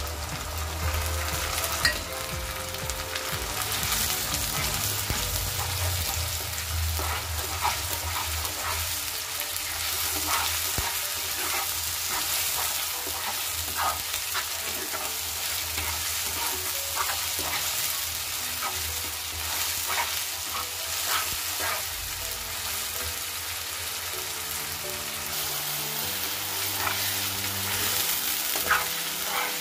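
Onions sizzling steadily in hot oil in a kadhai, with a flat spatula scraping and clicking against the pan as it stirs in a freshly added paste of garlic, onion and mustard seed.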